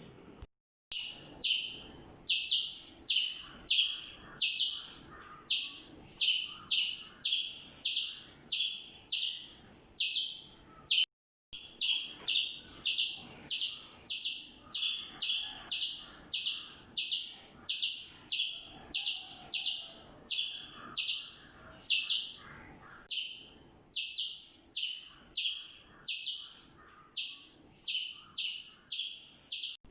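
A bird chirping in a steady run of short, high chirps, about two a second, broken by a brief silence about eleven seconds in.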